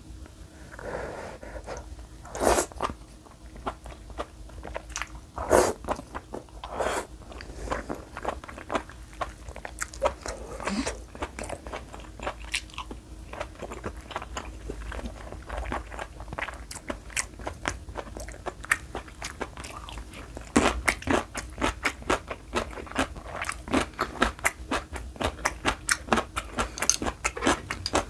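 Close-miked eating sounds: a brief slurp of spicy beef soup strands near the start, then wet chewing with crisp, crunchy bites. The chewing grows faster and denser in the last several seconds.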